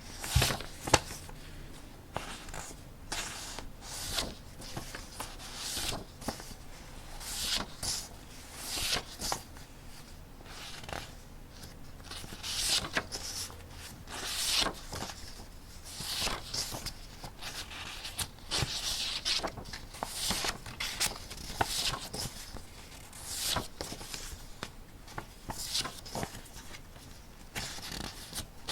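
Paper being handled and rustled in irregular crinkly bursts, with a few sharp taps, the loudest about a second in.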